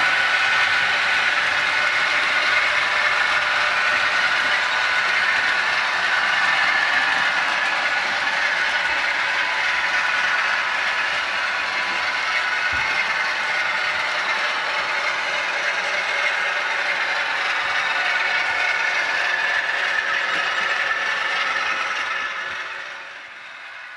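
Model railway freight trains running round the layout track: a steady mechanical running sound of the model locomotive and wagons on the rails, running smoothly round the curve. It drops away sharply near the end.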